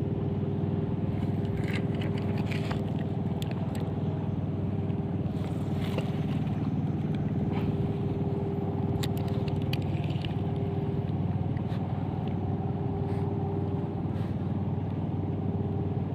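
A steady low engine hum at an unchanging pitch, with scattered light clicks and scrapes through the first ten seconds or so.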